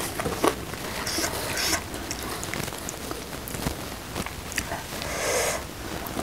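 Close-miked chewing and wet mouth sounds, with sharp breaths hissed in and out through the mouth, about one second in and again around five seconds in, as a woman reacts to very spicy food.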